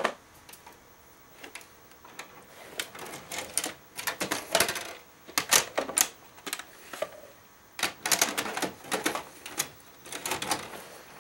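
Irregular plastic clicks and rattles of a VHS cassette being handled and pushed into the tape slot of a TV/VCR combo.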